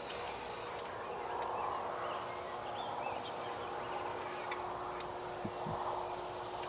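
Wild turkey toms gobbling, their rattling calls swelling up several times. Small birds chirp in the background, and there are a couple of soft thumps about five and a half seconds in.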